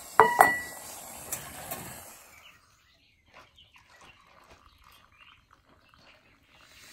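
Two sharp metal clanks with a short ringing tone, a metal camp cook pot knocking against its small camp stove as it is lifted off, followed by a couple of lighter clinks.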